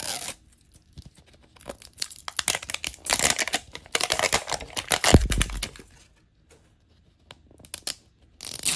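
Foil-and-plastic wrapper being peeled and torn off a Mini Brands toy capsule ball, crinkling and crackling in bursts, with a single low thump about five seconds in.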